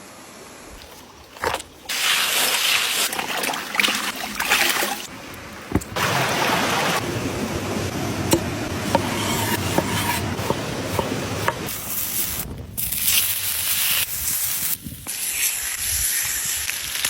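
Fish frying in hot oil: a dense sizzle with small crackles and spatters, cut off and resumed several times.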